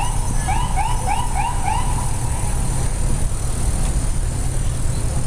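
Steady low rumble of slow, gridlocked city street traffic. For the first two seconds a rapid warbling signal sounds over it: short rising-and-falling chirps, about four a second, which then stop.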